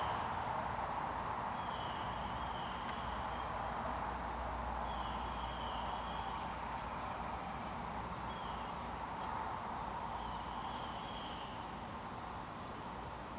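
Rural outdoor ambience: a steady hiss and low rumble of distant traffic, a buzzy animal call repeated in phrases about a second long every two to three seconds, and scattered short, high chirps from small birds.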